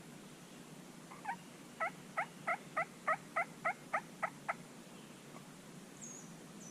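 A run of about eleven turkey yelps, roughly three a second, starting about a second in and stopping halfway through, followed near the end by a faint high bird chirp.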